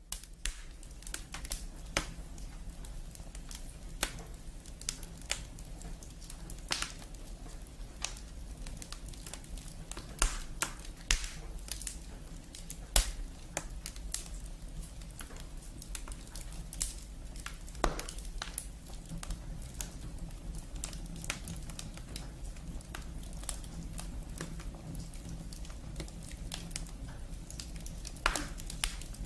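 Log-fire sound effect: burning firewood crackling and popping irregularly over a steady low background, with the sharpest pops about 10, 13 and 18 seconds in.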